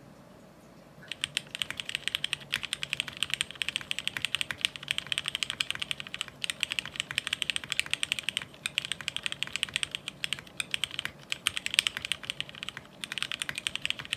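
Fast typing on a mechanical keyboard in a ceramic housing: a dense run of key clacks that starts about a second in, broken by a few brief pauses.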